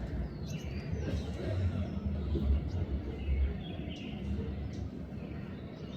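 Bulbuls giving short, scattered chirps over a steady low rumble.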